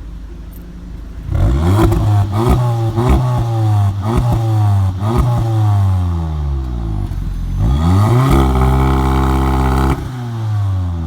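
Pre-facelift Audi S3 8V's turbocharged four-cylinder revved from idle. As the revs fall away, the exhaust gives a string of sharp pops and crackles. It is then revved again, held high for a couple of seconds, and let drop.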